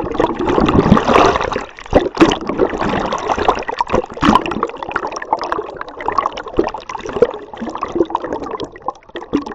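Sea water gurgling and sloshing around a camera held underwater, with many small crackles and pops.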